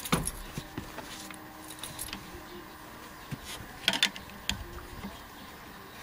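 Flat-blade screwdriver prying and scraping at a piece on a Jeep TJ front seat's track, giving scattered metal clicks and scrapes. The sharpest come right at the start and about four seconds in.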